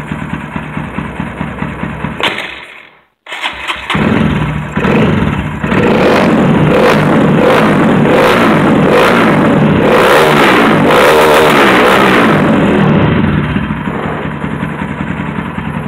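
Honda Grom's 125 cc single-cylinder engine with a bigger aftermarket cam, running without its air box and not fully warmed up: it idles, cuts out about two and a half seconds in, restarts within a second, is revved up and down several times, then settles back to idle near the end.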